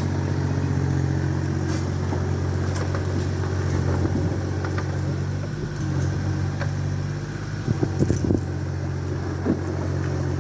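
Small backhoe's engine running steadily under load, with a few sharp knocks around eight seconds in and one more shortly after.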